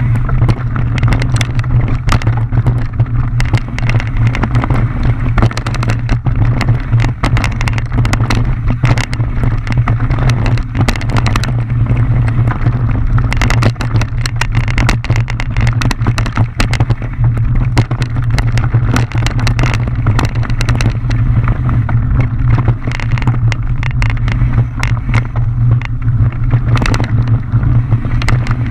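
Mountain bike riding fast down a rough trail, heard from a camera on the bike or rider: a constant loud rumble and rattle with dense knocks and clicks from the tyres and frame hitting rocks and roots.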